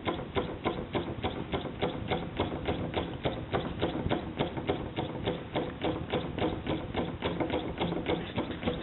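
Small school-built hot air (Stirling) engine running, its crank and linkage clicking in a steady, even rhythm of about four or five clicks a second.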